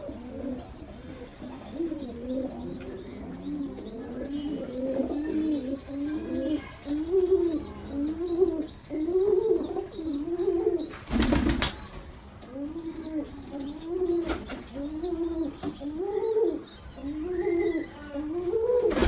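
Pigeons calling: a steady run of low, rising-and-falling coos, more than one a second, with the high squeaky peeps of a baby pigeon above them. A brief loud clatter breaks in about halfway through, with a fainter one a few seconds later.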